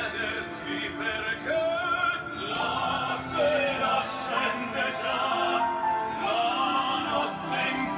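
Background music: operatic singing over instrumental accompaniment.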